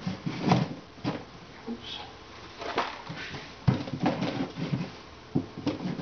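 Irregular wooden knocks, bumps and short scrapes as the slide-out wooden frame trays of a hive are handled, with one sharper knock past the middle.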